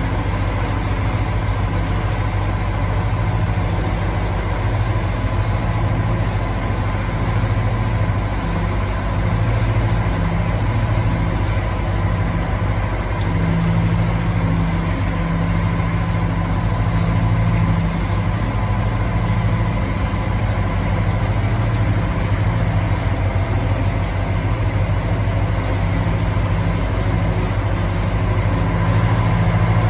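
A narrowboat's diesel engine running steadily at cruising speed, a low, evenly pulsing hum.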